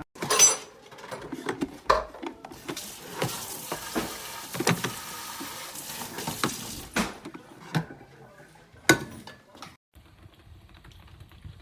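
Knocks, clicks and scrapes of plastic and glass parts being handled and pushed into place on a drip coffee maker, sharpest about half a second, two seconds and nine seconds in. A steady hiss runs through the middle.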